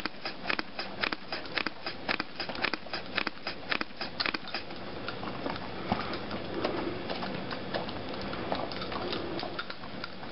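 Dog eating a carrot-cake dog cupcake close to the microphone: quick wet chomps about three a second for the first four seconds or so, then softer, steadier chewing and mouthing.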